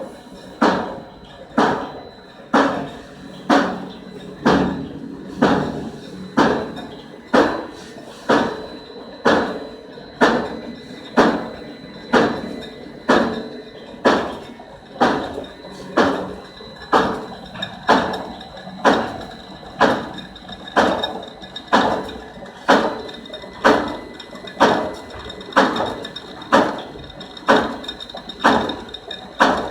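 Cutting machine running, its blade or press striking in a steady rhythm of sharp knocks, a little under two a second, with a faint steady whine behind them.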